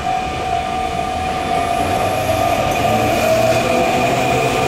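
Sotetsu 9000 series electric train pulling out of the station with a steady motor whine. About three seconds in, rising tones set in and it grows louder as the train gathers speed.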